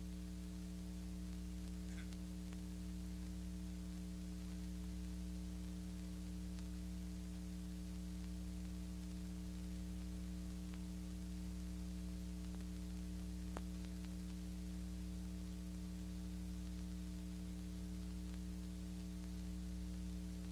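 Steady electrical mains hum with a light hiss, the background noise of an old film soundtrack; one faint click just past the middle.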